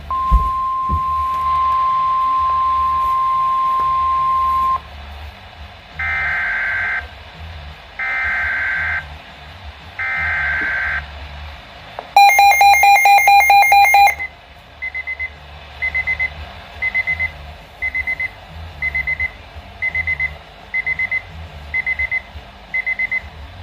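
Weather radio alerting to a severe thunderstorm warning. A steady single-pitch warning tone sounds for about five seconds, then three one-second bursts of screeching data tones, then about two seconds of loud rapid beeping alarm. After that come short high beeps about once a second.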